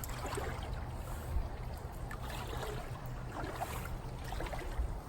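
Pond water sloshing and trickling steadily, with no single loud event.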